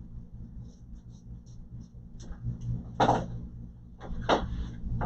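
Small clicks and two louder knocks, about three and four seconds in, as the drive and computer parts are handled, over a steady low hum.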